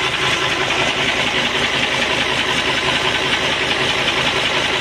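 Isuzu 10PD1 V10 diesel engine idling steadily, running on a freshly overhauled and calibrated injection pump.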